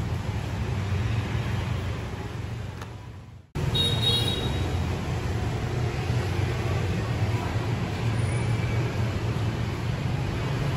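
Steady road traffic noise with a low hum. It fades away and cuts off about three and a half seconds in, then comes straight back just as steady.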